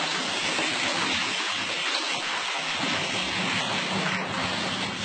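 Water spray from a hand-held hose nozzle hissing steadily against the coil of a wall-mounted split air conditioner as the coil is washed.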